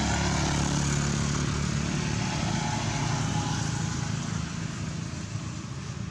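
Steady rumble of a motor vehicle's engine, easing somewhat over the last couple of seconds.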